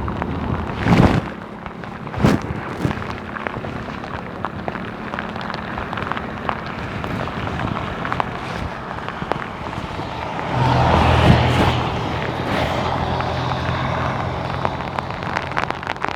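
Steady rain with many drops ticking, and a vehicle engine humming; the engine gets louder about ten seconds in. Two louder knocks sound in the first few seconds.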